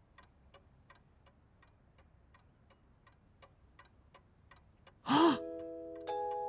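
Faint clock ticking steadily. About five seconds in, a sudden loud gasp-like burst, then ringing chime notes that hold and stack up one after another.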